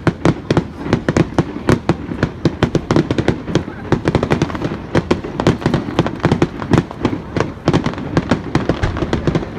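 Fireworks going off in quick succession: a dense run of sharp bangs and pops, several each second, with no let-up.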